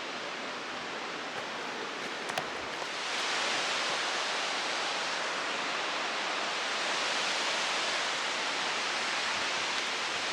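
Steady outdoor rushing noise, swelling slightly about three seconds in and then holding level, with a couple of faint clicks a little before that.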